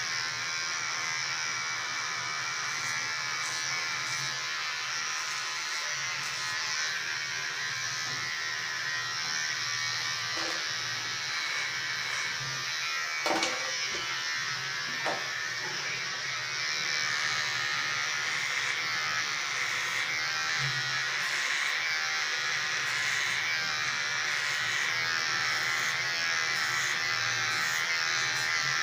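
Electric hair clipper switched on and buzzing steadily as it cuts hair at the sides and back of the head, a little louder in the second half.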